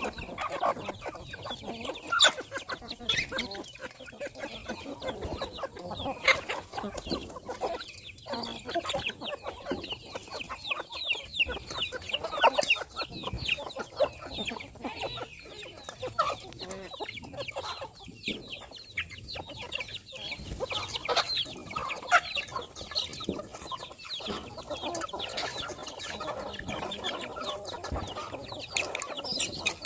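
A large flock of chickens clucking continuously, many birds calling over one another in short overlapping clucks, with scattered sharp clicks among them.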